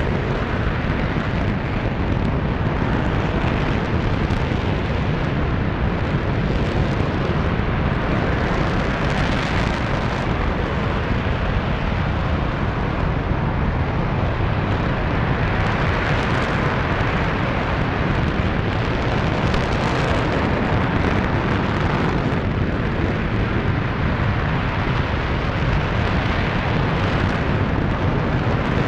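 RS-25 liquid-hydrogen/liquid-oxygen rocket engine running steadily in a ground test firing: a continuous deep roar that holds an even level, with no pauses or changes.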